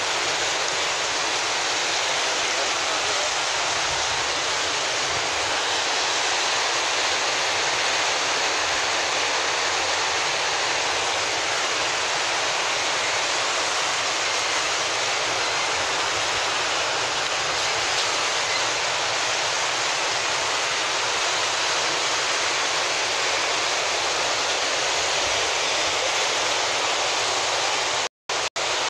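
Muddy floodwater from a canal collapsed by heavy rain, rushing in a steady, even torrent down a street. The sound cuts out briefly twice near the end.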